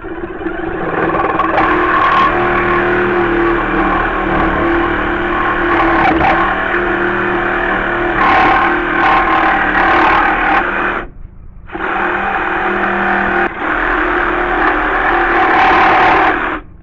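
Jigsaw cutting through deck boards, the motor running at full speed with a steady whine. It stops briefly about eleven seconds in, starts again, and cuts off sharply near the end.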